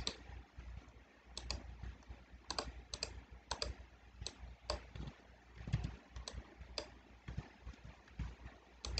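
Computer mouse clicks and keyboard key presses: sparse, separate clicks about once a second, several of them in quick pairs.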